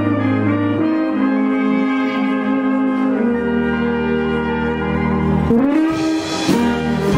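Brass band playing a tune in long held notes, with the tuba sounding sustained bass notes beneath the trumpets and horns.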